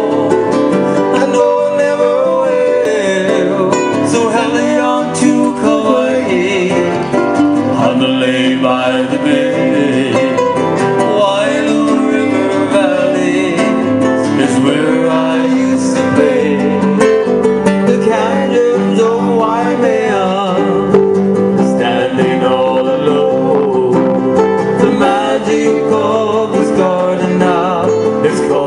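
Hawaiian music: plucked strings such as guitar, with a singing voice.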